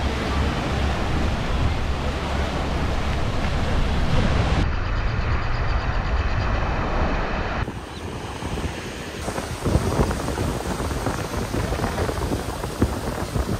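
Small waves washing onto a sandy beach, with wind buffeting the microphone; in the first few seconds people splash as they wade through the shallow surf. The sound changes abruptly twice as the shots cut.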